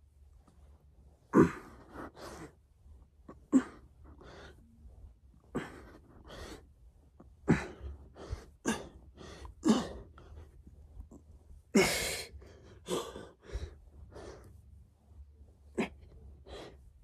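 A man breathing hard through a set of push-ups: a string of short, forceful exhales and gasps, about one a second, with a longer, heavier breath about twelve seconds in.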